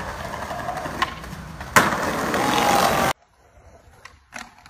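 Skateboard tricks. A board pops about a second in, and a hard landing follows just under two seconds in, with loud wheels rolling over pavement until the sound cuts off suddenly just after three seconds. After that, quieter, two short board clacks sound about a second apart.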